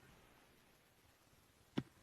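Near silence, with one short faint tap near the end.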